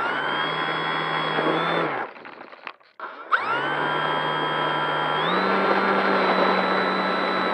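Electric motor and propeller of a Durafly Tundra RC plane whining steadily. The motor cuts out for about a second around two seconds in, then spools back up with a rising whine, and steps up higher in pitch about five seconds in as the throttle is opened further.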